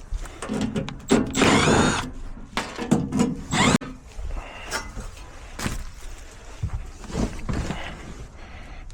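Cordless drill-driver running in two short bursts, with a rising whine, followed by lighter clicks and knocks of tools being handled.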